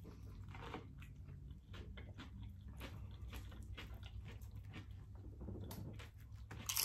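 Close-up chewing and mouth sounds of people eating, with many small crisp crunches from tortilla chips and a louder crunch near the end.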